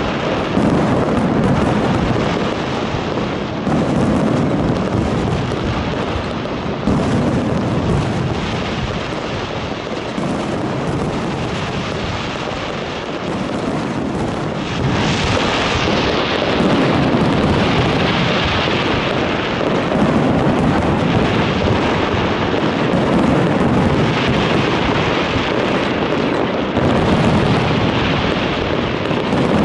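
Fireworks display: a dense run of booming aerial shell bursts every second or two, with crackling that grows from about halfway through.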